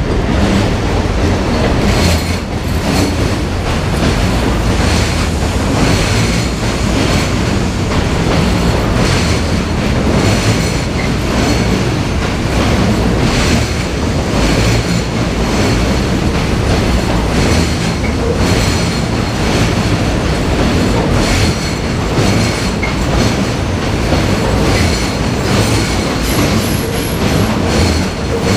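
New York City Subway R68-series cars rolling into a station on curved track: a loud, continuous rumble of steel wheels with regular wheel clacks about once a second and a thin, steady high-pitched flange squeal from the wheel flanges grinding against the rail.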